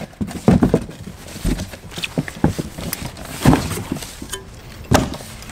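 Cardboard boxes and packaging being rummaged through and handled: irregular knocks, taps and rustling, with a few sharper knocks spaced about a second apart.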